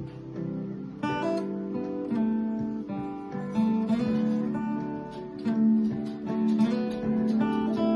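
Acoustic guitar played solo: a melodic lead line in G major of picked notes, several a second, with notes and chord tones left ringing between them.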